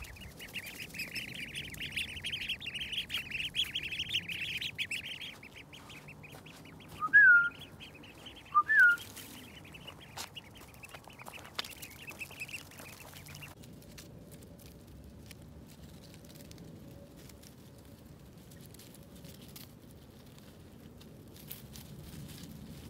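A group of Indian runner ducklings peeping together as they walk, a dense high-pitched chatter that is loudest for the first few seconds and then softer. Two louder, short calls stand out about seven and nine seconds in. The peeping stops a little past halfway, leaving only a faint steady hum.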